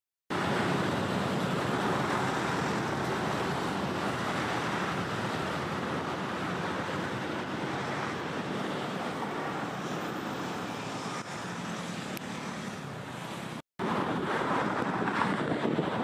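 Steady rushing of a foaming river current. It cuts out for an instant about three-quarters of the way through.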